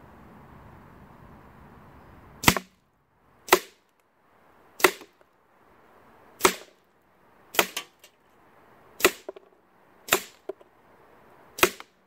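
Edgun Leshiy 2 .22 semi-automatic PCP air rifle firing eight quick shots, each a sharp crack, roughly one every second to second and a half. The first shot comes about two and a half seconds in.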